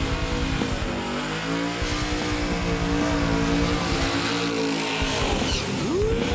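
A 1979 Camaro's 540 cubic-inch V8 held at steady high revs through a burnout, with the rear tyres spinning on the drag strip. Near the end the engine is revved sharply higher and begins to fall back.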